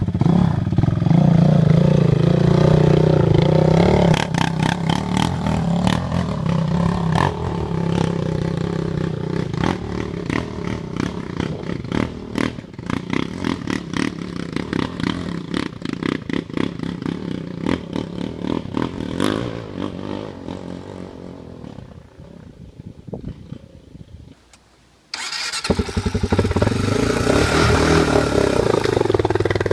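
Honda sport quads' single-cylinder four-stroke engines revving and pulling on a rough trail, with rapid, uneven throttle pulses. The engine note fades away over a few seconds, then cuts abruptly to a quad revving loudly close by.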